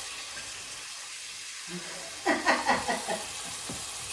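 Steady sizzle of fish fillets frying in hot oil in a pot. A person's voice comes in briefly a little past the middle.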